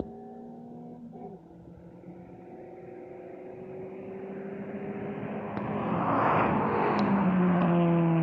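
Two cars racing side by side, engines and road noise growing steadily louder as they approach, then falling in pitch as they pass near the end.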